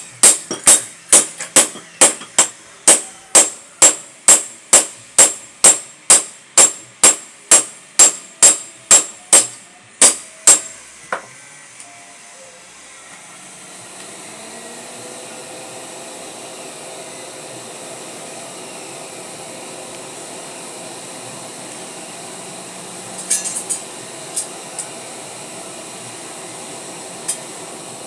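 Power hammer striking metal in an even rhythm, about three ringing blows a second, stopping after about ten seconds. A steady rushing noise then rises and continues, with a few light metal clinks.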